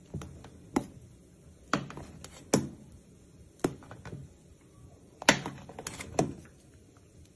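A metal spoon knocking and clinking against the side of a metal cooking pot while stirring a thick stew: a string of sharp, irregular knocks, about nine in all.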